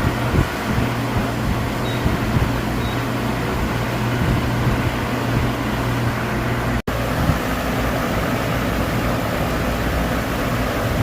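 Steady machine-shop machinery noise with a constant low hum, cutting out abruptly for an instant about seven seconds in.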